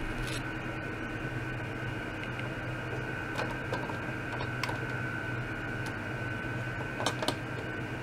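Small ultrasonic cleaner running with an ultrasonic probe dipped in its water. There is a steady low hum and a steady high whine, with a few sharp ticks scattered through.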